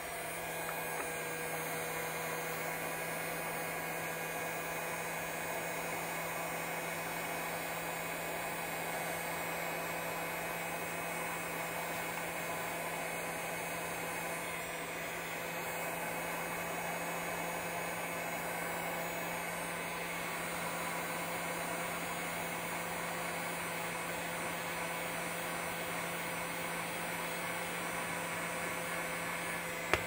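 Electric heat gun running steadily, its fan blowing hot air with an even, constant hum.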